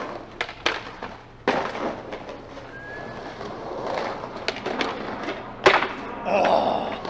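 Skateboard wheels rolling over a rough cobblestone bank, with several sharp clacks of the board hitting the ground, the loudest about a second before the end.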